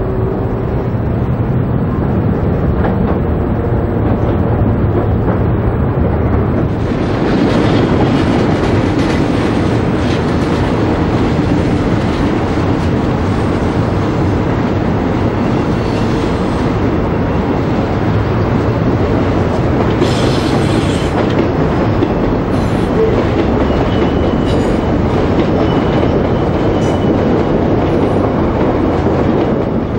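Electric suburban trains running over a curved elevated viaduct, a continuous rumble with wheels clattering over the rail joints. It grows louder and brighter about seven seconds in, with brief high wheel squeals on the curve in the second half.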